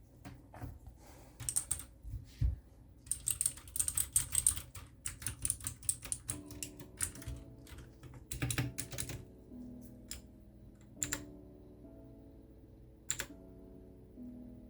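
Typing on a Redragon K630 mechanical keyboard with clicky blue switches: quick runs of key clicks for the first few seconds, then slower, scattered keystrokes. Soft background music with held notes comes in about six seconds in.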